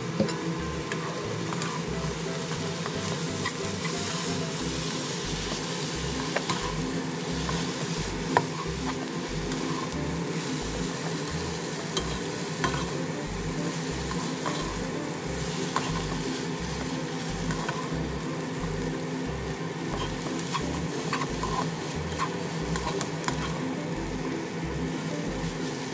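Noodles and vegetables sizzling in a nonstick wok as a spatula stirs and tosses them, with a few sharp clicks of the spatula against the pan. Soft background music with a low beat runs underneath.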